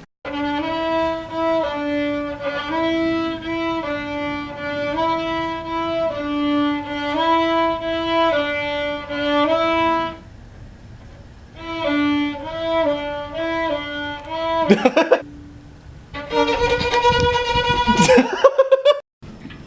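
Violin played with a bow, a simple tune of held notes moving between a few pitches. It pauses about ten seconds in, resumes for a couple of seconds, and a different wavering pitched sound follows near the end.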